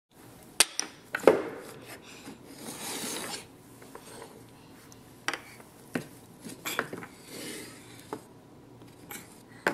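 Chunky wooden puzzle pieces knocking and clacking on a tile floor and against the wooden puzzle board, a scattering of sharp knocks a second or more apart, with light scraping between them.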